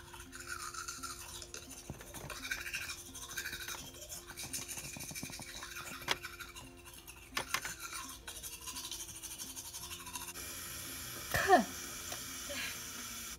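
Toothbrush scrubbing: quick, scratchy back-and-forth brushing of teeth, over quiet background music. A short, loud sound that falls in pitch comes near the end.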